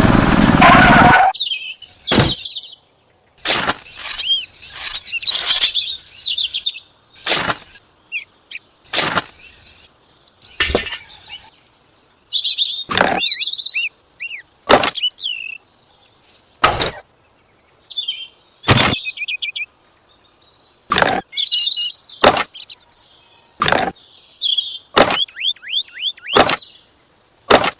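Birds chirping, with sharp clicks or taps coming every second or two; a louder sound cuts off about a second in.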